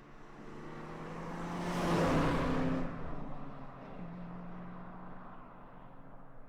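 A car approaching and driving past, its engine and tyre noise swelling to the loudest point about two seconds in, dropping off sharply just before three seconds, then its engine drone fading away.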